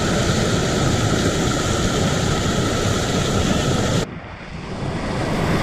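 Steady rush of waterfall and river water with wind buffeting the microphone. About four seconds in the sound suddenly turns muffled and quieter, then builds back up.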